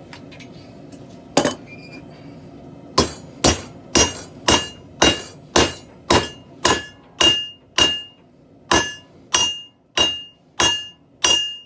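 Hand hammer forging steel on an anvil: one blow, then a steady run of about two blows a second. Each blow leaves a bright metallic ring.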